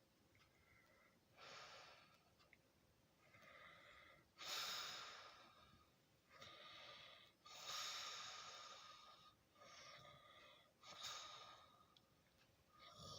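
A sleeping person breathing heavily, with faint, airy, hissing breaths in and out about every second or so rather than a buzzing snore. The loudest breath comes about four and a half seconds in.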